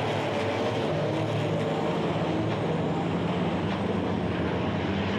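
Racing trucks' engines running in a steady, unbroken drone.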